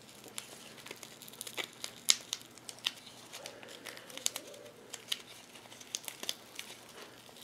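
Gloved hands wrapping Fiber Fix repair wrap around a homemade fishing rod's handle, making scattered soft crinkles and crackles, several a second.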